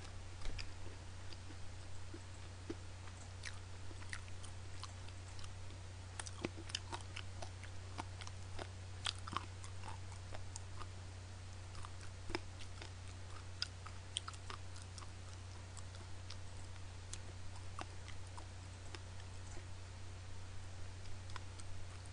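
A person chewing fried chicken with the mouth closed: scattered small crunches and clicks over a steady low hum.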